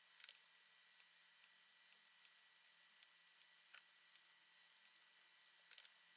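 Near silence broken by faint, irregular clicks of a computer mouse and keyboard, a dozen or so, with quick clusters near the start and near the end, over a faint steady hum.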